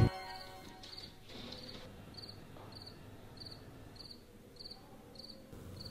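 Crickets chirping in short, evenly spaced high chirps, about three a second: the comedy sound effect for an empty, silent scene.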